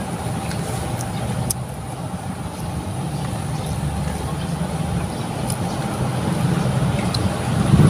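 Road traffic: a steady low rumble of passing vehicles, growing louder toward the end as one comes closer.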